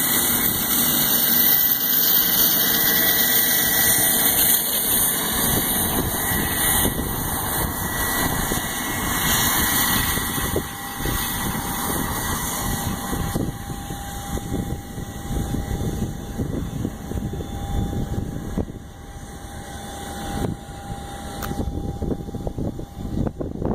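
Jet aircraft engines: a loud roar with a high turbine whine, gradually fading. A steady lower whine comes in about ten seconds in.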